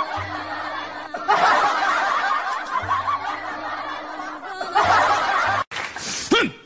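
Audience laughter, many voices at once, in three long bursts over background music with a steady low note. It breaks off about five and a half seconds in, and a single voice follows near the end.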